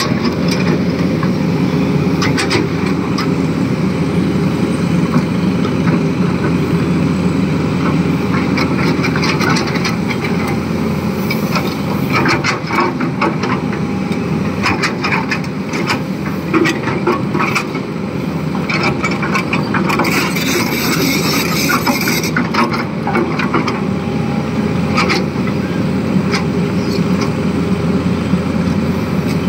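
Tata Hitachi crawler excavator's diesel engine running steadily under load while it digs gravel, with repeated clanks and scrapes of the steel bucket in stone and a brief hiss about two-thirds of the way through.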